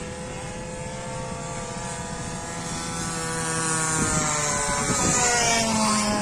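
Radio-controlled warbird model plane's motor running in flight, growing louder as the plane comes closer, then dropping in pitch as it passes near the end.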